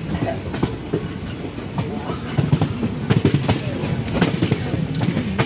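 Passenger train coach running, its wheels clacking and rattling over a steady rumble.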